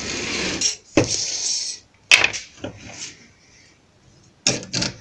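Handling noise from metal bar clamps and wooden pieces on a workbench: a rustle, then a few sharp knocks and clicks, a short lull, and a quick run of clicks near the end as a clamp is set on the glued-up box.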